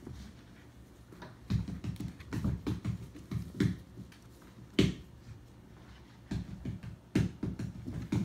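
Puppies scampering and scuffling on a rug and wooden floor: irregular soft thumps and taps of paws and bodies, with two louder knocks about five and seven seconds in.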